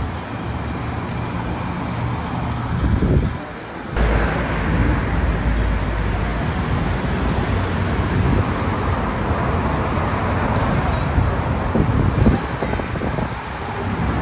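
Street traffic: vehicles running along a busy city road, a steady rush of noise. About four seconds in the sound changes abruptly, and a heavier low rumble lasts for a couple of seconds.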